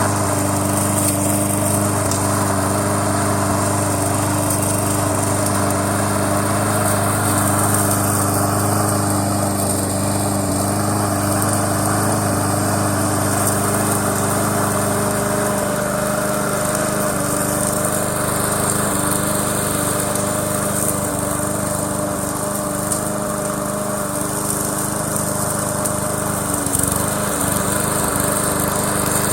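Lawn mower engine on a home-built remote-control push mower running steadily, with no break in its sound.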